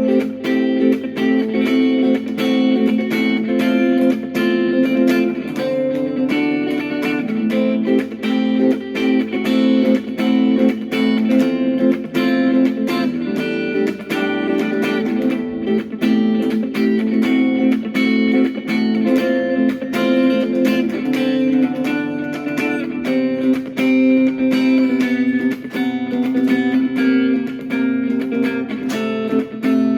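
Instrumental guitar music: a steady stream of picked guitar notes over sustained chords.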